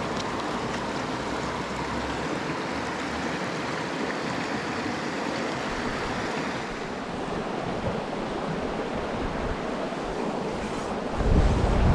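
Mountain stream water rushing steadily. Near the end, wind buffets the microphone with a low rumble.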